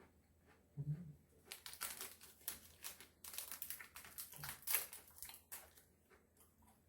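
A plastic snack wrapper crinkling as it is handled, in a dense run of sharp crackles for about four seconds, with a couple of soft low thumps.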